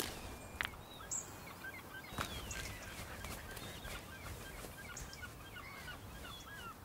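A flock of birds calling in many short, quick chirps, with a sharp knock about half a second in and another about two seconds in.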